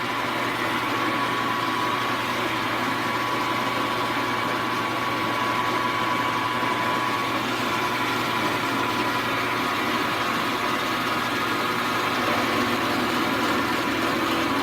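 Milling machine running steadily, its four-flute high-speed steel end mill taking a 0.025-inch cut, with a steady whine over a low hum.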